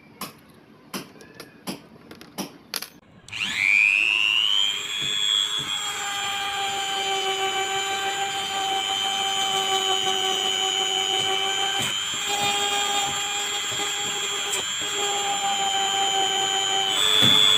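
Small metal clicks of a spanner and hex key tightening a felt polishing wheel into a Digital Craft rotary tool (die grinder). About three seconds in the tool starts with a rising whine and runs steadily, the felt wheel buffing a wooden block coated with polishing compound. Near the end the whine briefly rises higher and louder.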